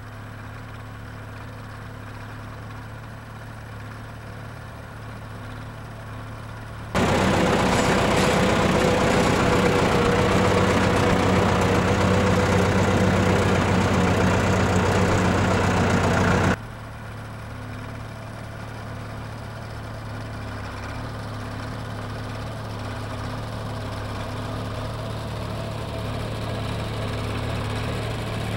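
1959 Fordson Major tractor engine running steadily at little more than idle while it pulls a ripper through hard ground. About a quarter of the way in it jumps suddenly to loud and close for roughly ten seconds, then drops back to a more distant hum that grows steadily louder as the tractor comes near.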